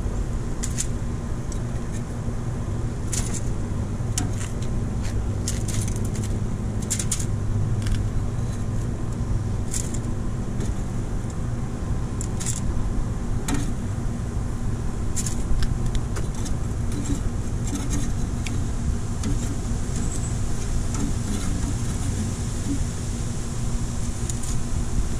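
Metal tongs clinking and scraping on a steel grill grate in short, irregular clicks as bacon-wrapped jalapeno poppers are lifted off one by one, over a steady low hum.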